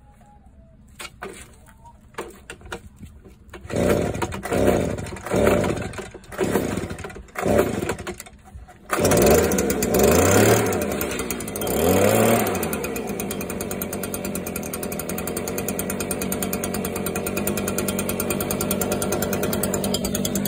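Stihl BG 86 leaf blower's two-stroke engine being pull-started on its newly replaced carburetor: a few quiet clicks, then about five pulls of the recoil starter, the engine catching about nine seconds in. It revs up twice, then settles into a steady idle.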